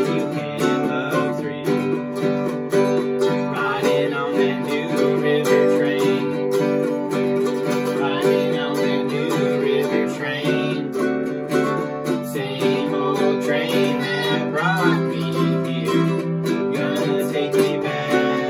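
A mandolin and a small four-string guitar strummed together in a folk tune, with a girl singing the melody.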